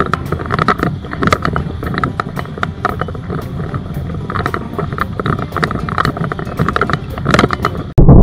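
Small sailing dinghy under way in a fresh breeze: water rushing and slapping along the hull, with wind on the microphone and irregular knocks and rattles from the boat and the boom-mounted camera. Near the end it cuts abruptly to a loud, low thud.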